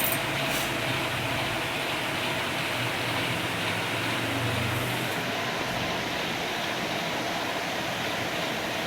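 Steady background noise, an even hiss with a low hum underneath that fades out about five seconds in.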